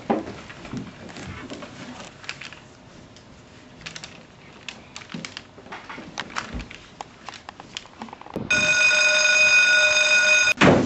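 Soft classroom rustle of pages and pencils. About eight and a half seconds in, a school bell comes in as a loud, steady electric buzzer tone, lasts about two seconds, and cuts off abruptly.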